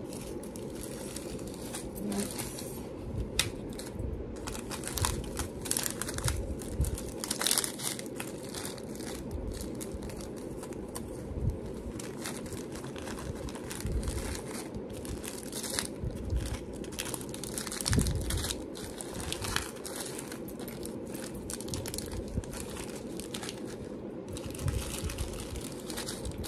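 Small plastic bags of metal jewelry findings (bead caps) being handled and sorted, with irregular crinkling and small clicks over a steady low background hum.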